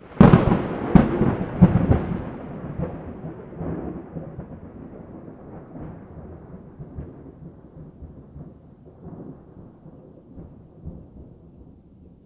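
Close thunderclap: a sudden sharp crack, two more cracks within the next second and a half, then a long rolling rumble that slowly fades away.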